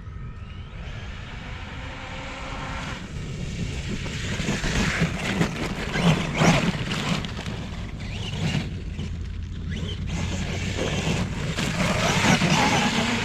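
Kyosho Foxx RC car's brushless motor and drivetrain running hard, with its paddle tires churning through heavy snow. It revs and eases off unevenly, loudest about halfway through and again near the end.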